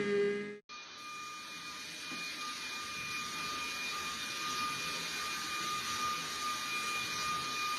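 A small electric motor running steadily: an even hiss with a thin, constant whine. It follows a pitched sound that breaks off about half a second in.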